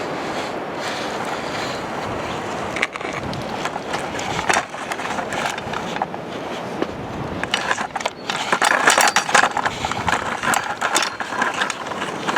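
A plastic toy construction truck scraping and rolling through gritty dirt and gravel, with scattered clicks and a busier stretch of scraping about two-thirds of the way through, over a steady rushing noise.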